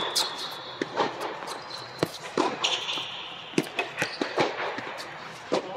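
Tennis rally on an indoor hard court: a string of sharp pops from racket strikes and ball bounces, with shoes squeaking on the court surface twice.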